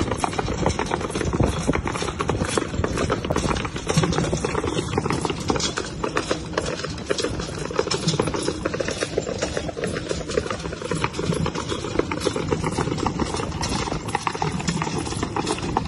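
Hooves of a three-horse team pulling a carriage uphill on a dirt track, a steady, busy clatter of hoofbeats mixed with the rattle of the carriage over the ground.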